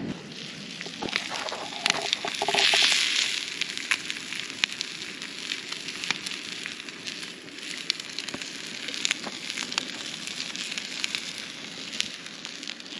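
Wood campfire crackling with scattered sharp pops, and steak sizzling over it, with a louder swell of hissing about three seconds in.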